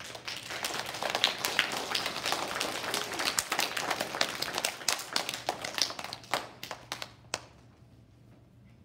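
Audience of children clapping, thinning out and stopping about seven and a half seconds in.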